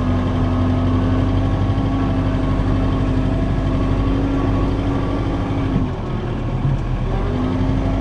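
John Deere 4066 compact tractor's three-cylinder diesel running steadily while it works over gravel, with a steady higher tone over the engine that drops out for about a second and a half near the end.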